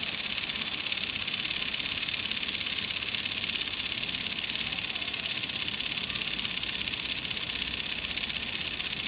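Small solar-powered DC motor and plastic gearbox of a 6-in-1 solar kit toy dog running, with a steady buzz as it drives the legs.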